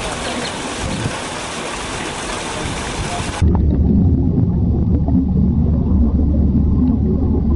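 Underwater recording noise: a steady hiss with scattered faint crackles. A little over three seconds in, an abrupt cut gives way to a louder low rumble of water against the microphone.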